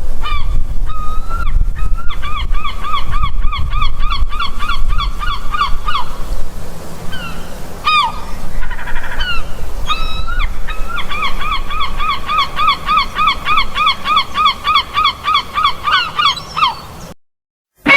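Kaiju creature sound effect: rapid pitched calls, each dropping in pitch, about four a second, in two long runs with a few single rising-and-falling calls between them, over a low rumble that fades out about two thirds of the way through.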